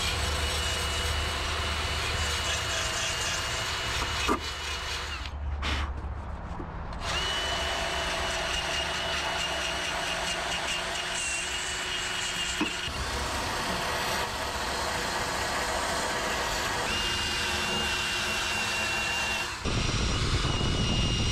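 Einhell cordless drill spinning a wire-brush attachment against rusty engine-bay steel, scrubbing off surface rust. The motor's high whine comes in several runs with short pauses between them, over a continuous scratchy grinding.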